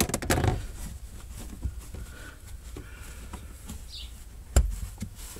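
A few light clicks and knocks from hand work on the car, with one loud sharp knock about four and a half seconds in.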